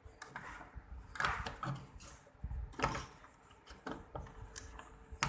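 Plastic clicks and knocks from the drain-filter access cover at the bottom front of an LG front-loading washing machine as it is handled and fitted back into place. There are a few separate knocks, the loudest about three seconds in.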